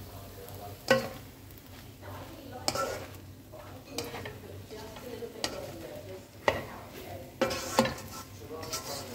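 Spatula scraping and clacking against a nonstick wok as fried rice with vegetables and chicken is stirred and tossed, in irregular strokes about once a second, over a faint sizzle from the pan.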